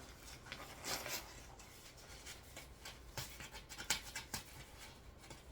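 Faint rustling and scratching of packaging being picked at and pulled open by hand, with a few sharper scrapes about one, three and four seconds in.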